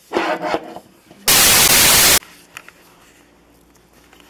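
A loud burst of static hiss, just under a second long, that starts and cuts off abruptly about a second in. Just before it comes a short rustling noise.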